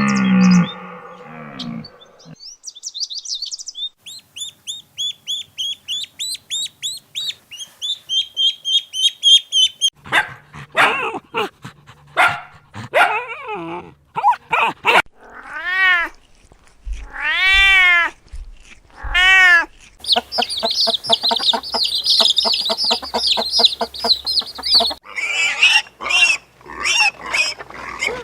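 A run of different animal calls in turn: fast, high bird-like chirping, then several drawn-out calls that rise and fall in pitch, then more rapid high chirping.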